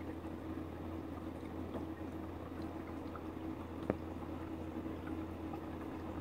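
Steady low hum with faint liquid bubbling and scattered small ticks, and one sharp click about four seconds in.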